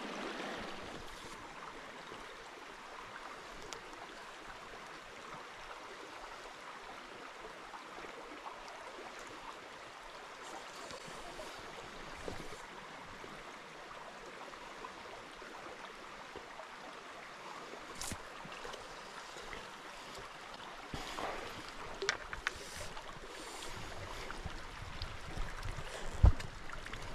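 Small stream flowing steadily, an even rush of running water, with a few brief knocks or splashes in the last several seconds.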